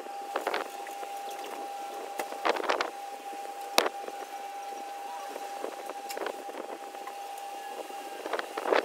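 A steady high hum with a faint hiss, broken by a few short clicks and scrapes from handling a paint brush and a tin of paint stripper; the sharpest click comes about four seconds in.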